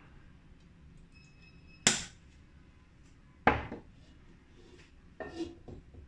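Cookware knocking while oil goes into a wok and the wok is handled on the stove: two sharp clanks about a second and a half apart, then a few lighter knocks near the end.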